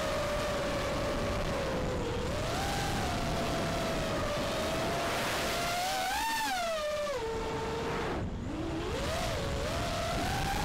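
FPV quadcopter's electric motors and propellers whining over a steady rush of prop wash and wind, recorded on the drone's own camera. The pitch rises and falls with the throttle, diving sharply a little past eight seconds in and climbing back right after.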